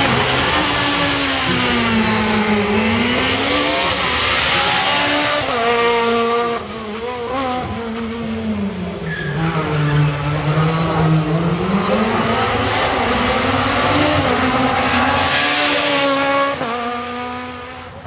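Renault Clio S1600 rally car's high-revving naturally aspirated four-cylinder engine driven hard. The revs climb and fall repeatedly through gear changes and lifts for corners, dropping lowest about halfway through before climbing again.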